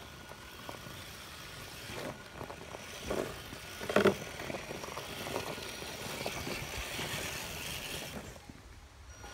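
Electric 8x8 RC crawler truck driving over dry twigs and leaf litter, its motor whining faintly, with its tyres crackling over debris. Several knocks about three seconds in and one loud knock at about four seconds as it climbs over a tree root. The sound drops away shortly before the end.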